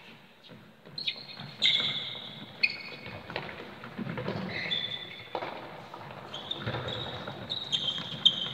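Players' trainers squeaking on a sports-hall floor during indoor football, several short high squeaks, with the ball being kicked and bounced and footfalls thudding, all echoing in the large hall.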